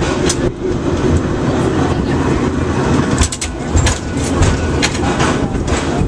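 Cable car running along its track, heard from inside the car: a steady low rumble with repeated sharp clanks and clicks, several coming close together a little past the middle.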